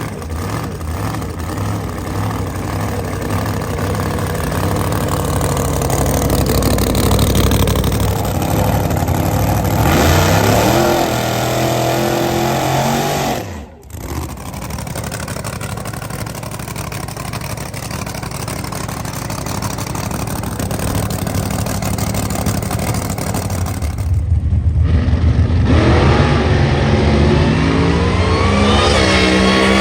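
Boosted Chevrolet drag-car engine running loud and revving hard. Its pitch climbs about ten seconds in and again near the end, with a sudden break about fourteen seconds in.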